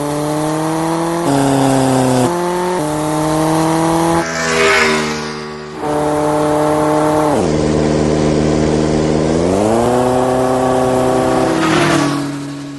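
Motorcycle engine sound effect running with a steady drone whose pitch shifts in steps, a whoosh about four and a half seconds in, the engine note dropping about seven and a half seconds in and climbing again near ten seconds, and another whoosh near the end.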